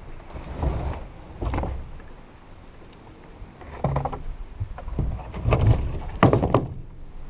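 A heavy log being worked up loading ramps, scraping and knocking in about five irregular bursts, the last ones the loudest.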